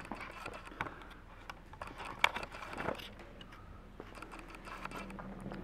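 Quiet room tone in a gym: a faint steady hum with scattered light clicks and knocks, the loudest two a little past two seconds in and near three seconds in.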